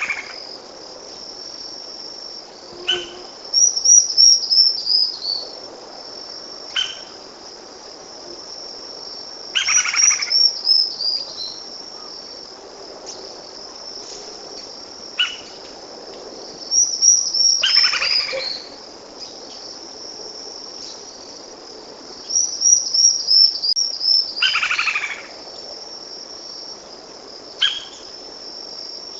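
Lineated woodpecker calling about four times, each call a short series of notes lasting about a second, with shorter single notes in between, over a steady high-pitched insect trill.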